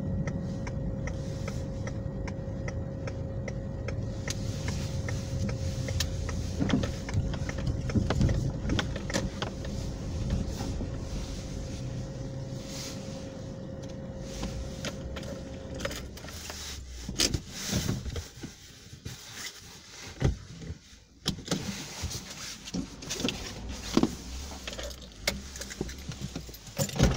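Car engine running, heard from inside the cabin, with a steady hum as the car pulls up and idles; it stops about two-thirds of the way through. After that come scattered clicks and knocks from handling things inside the car.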